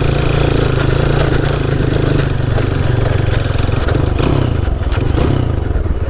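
Honda C90's small single-cylinder four-stroke engine pulling steadily under load in third gear, with a few sharp clicks and rattles over the top.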